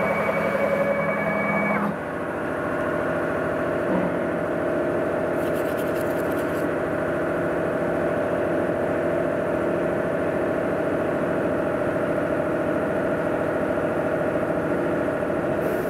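Small CNC router running: several steady whining tones stop about two seconds in, and a steady machine hum carries on.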